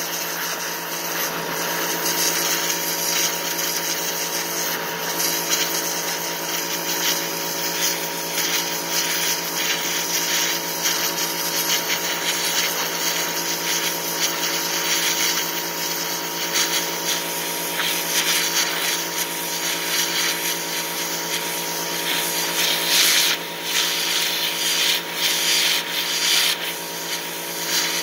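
Electric pressure washer running with a steady motor hum while its 0-degree jet sprays onto a deer hide on a wooden board, a constant hiss of water. The spray hiss surges louder a few times in the last third.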